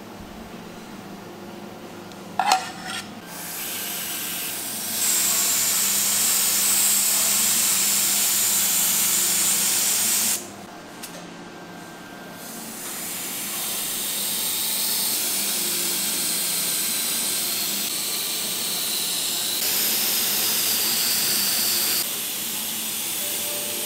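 Gravity-feed spray gun hissing with compressed air as it sprays yellow colour onto chocolate decorations. It runs in two long stretches, the first stopping suddenly about ten seconds in and the second starting again about two seconds later. A brief clink comes just before the first spray.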